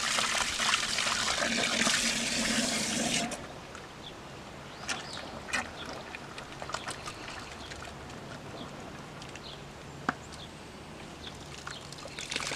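Garden hose spraying into a bucket of red-clay gravel to wash the mud out of it: a loud steady hiss that cuts off suddenly about three seconds in. After that come quieter gurgling and small splashes in the bucket, with one sharp click about ten seconds in.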